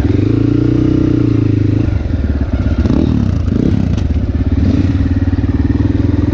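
Dirt bike engine running at low revs as the bike rolls along at walking pace, the note swelling and dropping back in the first two seconds, then holding steady with small rises.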